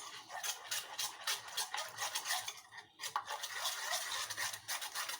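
A spoon stirring and scraping a melted Vaseline mixture in a saucepan, with irregular clinks and scrapes against the pan and a brief pause about three seconds in.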